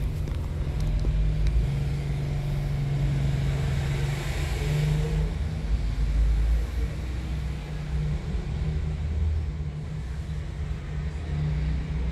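Road traffic heard from a moving motorbike: an engine running steadily under a low rumble, with the hiss and hum of surrounding motorbikes and cars.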